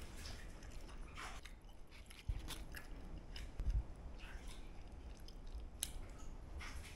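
Faint close chewing of kanom krok, Thai coconut puddings, with scattered small clicks and ticks and a couple of low bumps.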